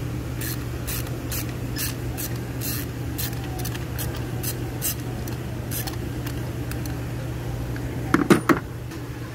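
Ratchet clicking in short strokes as it turns out a spark plug through a long extension, about two to three clicks a second. A few louder knocks come near the end.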